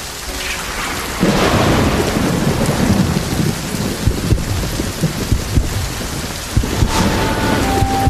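Heavy rain pouring down, with a thunderclap breaking in about a second in and rumbling on beneath the rain; a sharper crack of thunder near the end.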